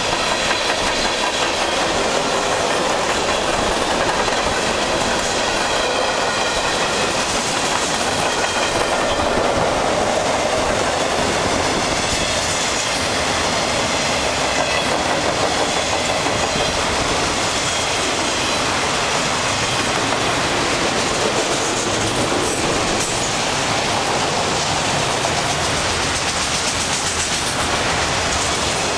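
Cars of a long freight train (a steel coil car, then autorack cars) rolling past, their steel wheels running on the rails with a steady, loud rolling noise.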